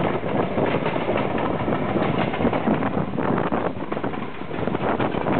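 Moving train heard from an open wagon: the DE-class diesel-electric locomotive's engine running, mixed with steady rattling wheel and carriage noise.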